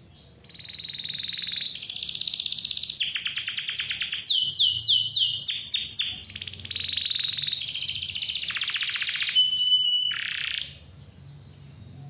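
Domestic canary singing a long rolling song of rapid trills, with a run of quick downward-sweeping notes in the middle and a short steady whistle before it stops near the end.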